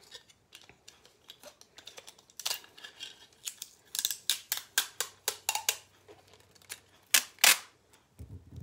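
Transparent tape being pulled off its roll in a series of short tugs, the loudest two near the end.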